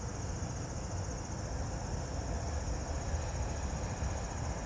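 Insects trilling steadily in the background, a high, fast-pulsing buzz, over a low rumble.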